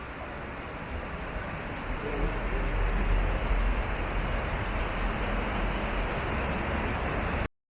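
Outdoor rumble of passing vehicles, steady and noisy, growing louder in its low end about two seconds in and cutting off abruptly near the end.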